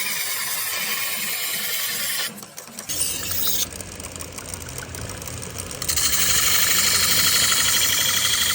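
Rapid, even rasping of metal being worked on a sickle blade, with a brief break about two seconds in and louder again from about six seconds in.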